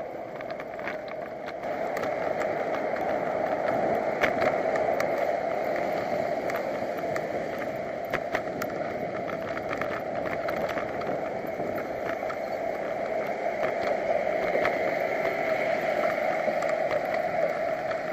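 Steady rushing wind and road noise from a bicycle riding through city streets, picked up by a GoPro action camera inside its housing, with many small clicks and rattles. The noise gets louder about two seconds in.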